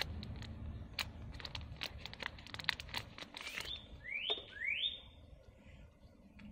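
Plastic shrink wrap crinkling and crackling as it is peeled off a deck of cards, in short crackles over the first three seconds or so. Near the middle a bird chirps three quick rising chirps.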